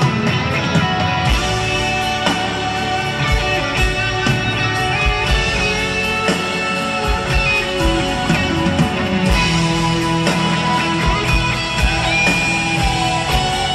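Live rock band playing an instrumental passage with no vocals: an electric guitar carries the melody over drums and keyboards.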